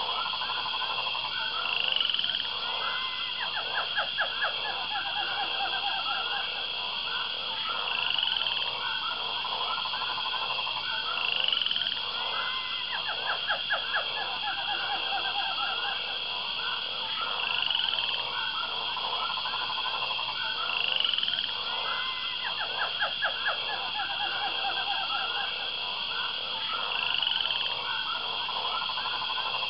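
Rainforest frog and insect chorus: a steady high insect trill, short rising chirps every few seconds, and bursts of rapid croaking pulses. The same pattern comes round about every ten seconds, like a looped nature recording.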